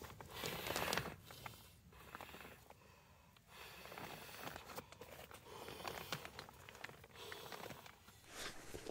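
Intermittent rustling and crinkling with small clicks, in irregular bursts. The loudest comes about a second in, with more near the middle and the end.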